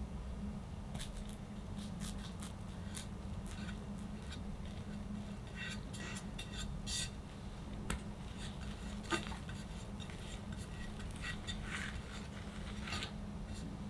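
Metal offset spatula spreading chocolate whipped cream over a cake, giving scattered soft clicks and scrapes over a low steady hum.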